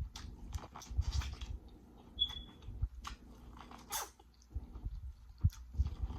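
Close-miked chewing and lip smacking of food, with irregular wet clicks and crunches, and one brief high squeak about two seconds in.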